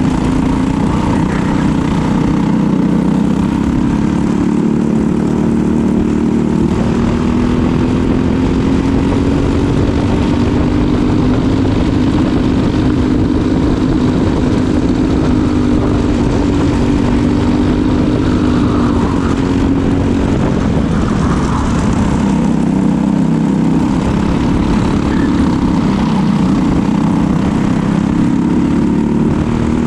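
Briggs & Stratton LO206 single-cylinder four-stroke kart engine racing, heard from a camera on the kart, its pitch rising on the straights and falling off into the corners.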